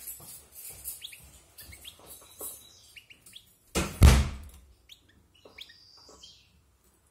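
European goldfinch singing a run of quick chirps, twitters and short rising notes. A loud thump about four seconds in is the loudest sound.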